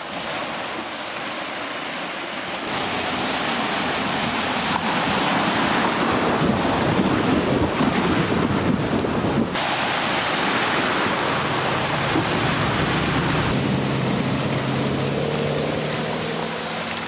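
Muddy water surging and splashing around a 2014 Range Rover Sport as it wades through a flooded track. In the second half the SUV's engine can be heard under the water noise, its note rising slightly near the end.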